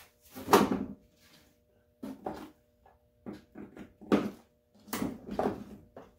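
Chisels being lifted off the hooks of a tool pegboard: a string of irregular clatters and knocks as the hanging tools are handled.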